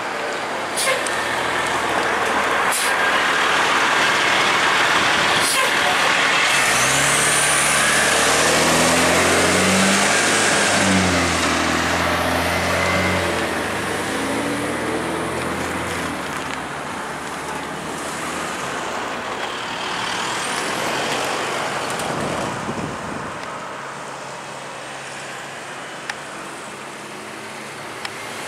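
A heavy diesel vehicle passes close by over a steady wash of traffic noise. Its engine note climbs in steps, peaks about a third of the way in, then drops away.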